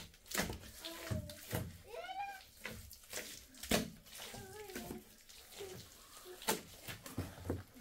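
Hand trowel scraping and slapping wet mud plaster along the base of a mud-built wood stove, in a series of short, irregular wet strokes. A few brief voice-like calls are heard in the background.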